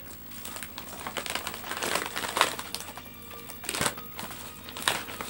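A padded paper mailer envelope being handled and pulled open, with irregular crinkling and rustling of the paper. The crinkling is loudest a few times in the second half, over faint background music.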